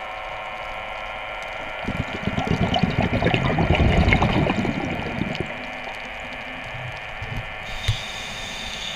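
The steady whine of a diver propulsion vehicle's electric motor, heard underwater. A louder rush of churning water noise swells from about two seconds in and fades away by about five and a half seconds.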